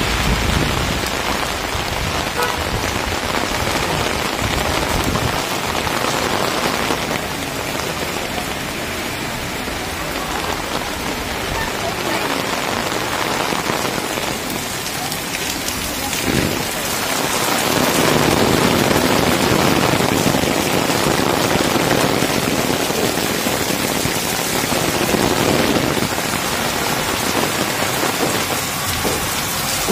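Heavy rain falling steadily on a paved street, a shower that swells louder for a few seconds past the middle.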